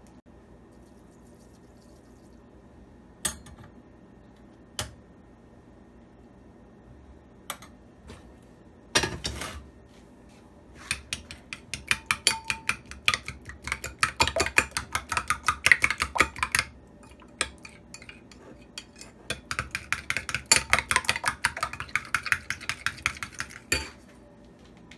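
Metal spoon beating eggs in a small ceramic bowl: a few single taps first, then two long spells of rapid clinking as the spoon strikes the sides of the bowl while whisking.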